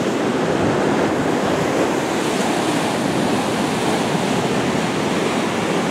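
Ocean surf breaking and washing up a sandy beach: a steady rushing wash of foaming waves.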